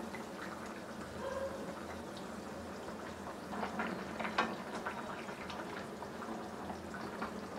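Curry gravy bubbling at a boil in a nonstick kadai over a high gas flame, with a metal spatula stirring and scraping the pan in a few light clicks around the middle.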